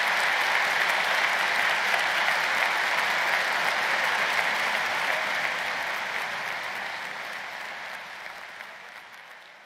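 Audience applauding steadily, then fading out over the last few seconds.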